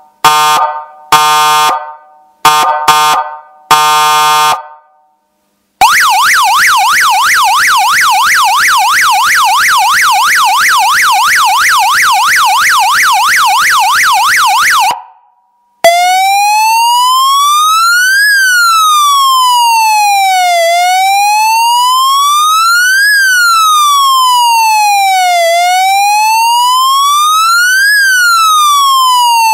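Multi-tone electronic siren stepping through its tones. First come a few short horn-like blasts, each fading quickly. Then a fast warbling yelp runs for about nine seconds, and after a brief pause a slow wail rises and falls about every five seconds.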